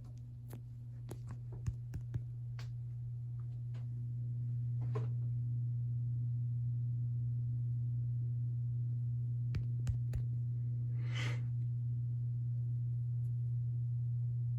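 Emerson Casablanca Classic ceiling fan motor running with a steady low electrical hum, growing louder over the first few seconds and then holding level. A few faint clicks and one short rushing noise about eleven seconds in.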